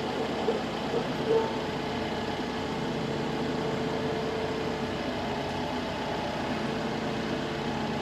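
Tractor engine running at a steady speed, while a tree-puller attachment is used to pull prickly ash out by the roots.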